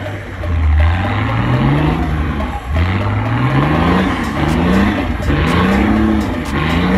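Four-wheel drive's engine revving hard under load while climbing a steep dirt hill. The revs rise in a long surge, then in quicker repeated surges, each climbing and dropping away.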